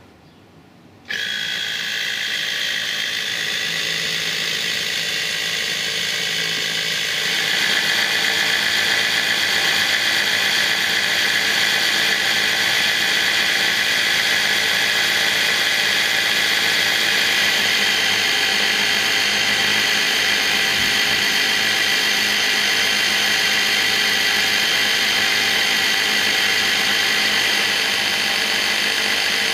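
Brookstone 12 V portable air compressor switching on about a second in and running with a steady whining buzz, getting louder about seven seconds in. It is pumping air into a plastic bottle against steadily climbing pressure, drawing around 5 amps at 120 psi.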